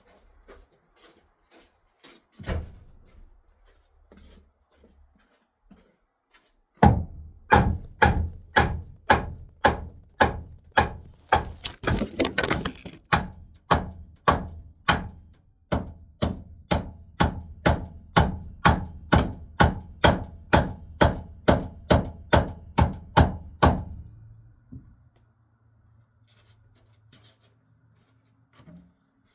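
Steady hammering on a new wooden crossmember, about three even blows a second for some seventeen seconds, driving it through into place in the RV's frame. A single heavier knock comes a few seconds before the hammering starts.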